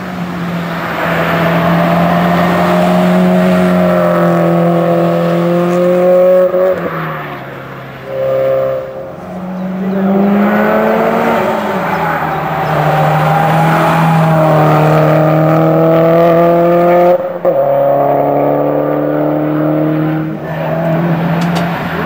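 Subaru Impreza rally car's turbocharged flat-four engine running at full throttle, held high and then dropping in pitch at each upshift: once about a third of the way in, and twice in the last quarter.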